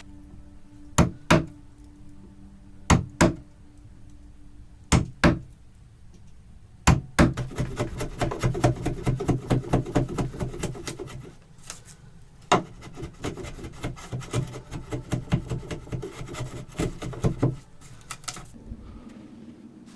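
Hand-tool work on wood: three pairs of sharp knocks about two seconds apart, then about ten seconds of rapid scraping strokes, several a second, interrupted once by a single knock.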